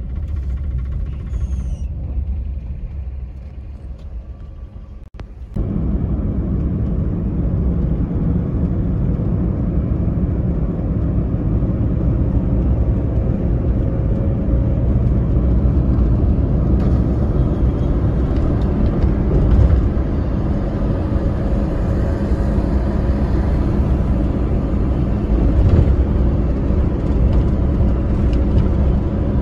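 Steady low rumble of road and engine noise inside a moving car. It is quieter for the first few seconds, then jumps abruptly louder about five and a half seconds in and stays steady.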